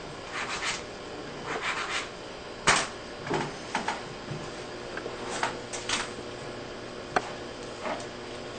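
Pens scratching on paper and small handling rustles at desks, in short bursts that come and go, with two sharp clicks, about a third of the way in and near the end, like a pen being set down on a desk.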